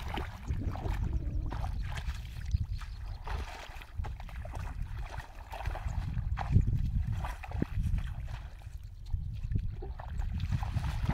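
Bare feet squelching and sloshing through shallow mud and water in irregular steps, over a constant low rumble.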